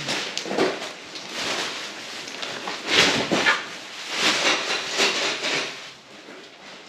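Plastic stretch wrap and cardboard boxes rustling, crinkling and scraping in irregular bursts as a shrink-wrapped pallet is unpacked by hand. The loudest burst comes about three seconds in, and the sound dies down near the end.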